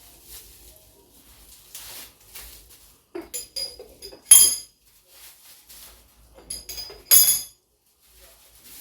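Small spoons and kitchen canisters being handled, clinking against each other in a few sharp ringing clinks. The loudest come about four seconds in and again about seven seconds in.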